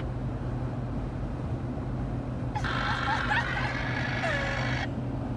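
Jeep Wrangler JL Rubicon driving on a road, its steady engine and road noise heard from inside the cabin. For about two seconds in the middle, a higher-pitched sound with held tones rises above the drone.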